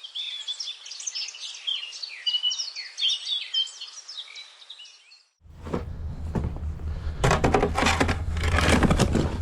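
Birds chirping and twittering in quick overlapping calls for about five seconds. The birdsong cuts off abruptly, and a steady low hum with louder rushing, scraping noise follows.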